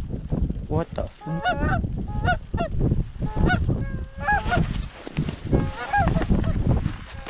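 A rapid, overlapping series of Canada goose honks, some rising at the end, with wind rumbling on the microphone.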